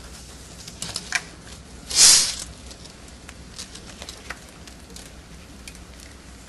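Handling noise from measuring with a tape measure: scattered light clicks, and one short, loud hissing rustle about two seconds in.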